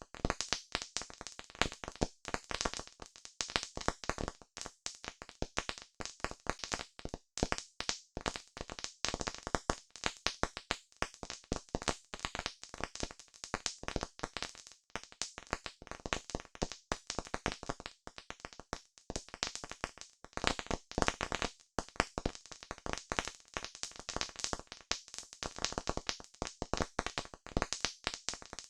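Campfire crackling: a dense, irregular run of sharp pops and snaps from burning wood.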